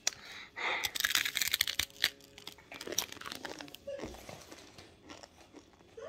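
A child chewing a mouthful of noodles close to the microphone: a dense run of mouth clicks and crackles for the first three seconds, then quieter chewing.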